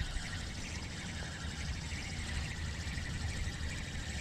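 Wind buffeting the microphone, a low steady rumble over a constant outdoor hiss, with no distinct events.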